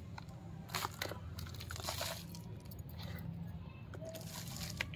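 Moist potting mix crumbled by hand into a thin plastic cup: irregular soft crunching and rustling of the soil, with light scrapes against the cup.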